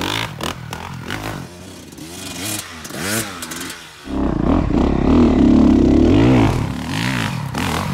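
Honda dirt bike engines revving on a steep hillside climb. At first one engine is heard at a distance, its pitch rising and falling several times as the throttle is worked. About four seconds in it changes abruptly to a louder, closer engine sound heard from on the bike.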